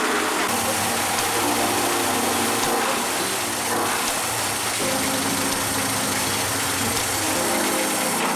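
Mercury 30 outboard motor running after a full overhaul, its pitch shifting up and down every couple of seconds, now ready for break-in.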